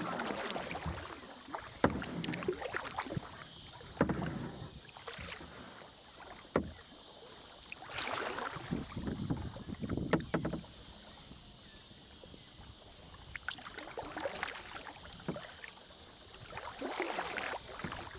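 Kayak paddling: paddle blades dipping and splashing through the water in strokes every two or three seconds, with a few sharp clicks between them.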